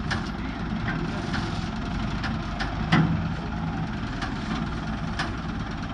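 A machine running steadily in a workshop, with scattered metal clinks and one louder knock about three seconds in.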